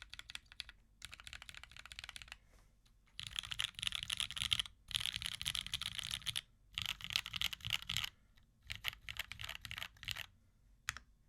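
Typing on a top-mount Merisi Ottantaquattro tenkeyless mechanical keyboard with lubed and filmed Cherry MX Black linear switches on an aluminium full plate and GMK keycaps: runs of rapid keystrokes lasting a second or two with short pauses between, thinning to a few scattered keypresses near the end.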